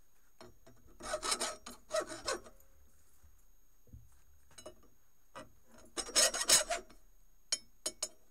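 Hand file rasping across the edges of a welded metal anvil block held in a vise, deburring its corners. The file goes in two runs of quick strokes, about a second in and about six seconds in, with the second louder, and a few light clicks between them.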